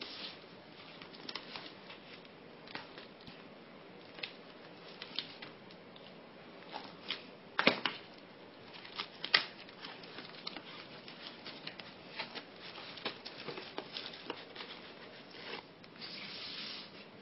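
Thin plastic bag crinkling and crackling as it is handled and opened and its contents are slid out: a run of irregular sharp crackles, two loud ones about halfway through, and a longer steady rustle near the end.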